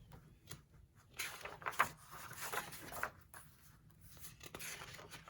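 Paper rustling and handling noise as a picture book's pages are turned, loudest between about one and three seconds in.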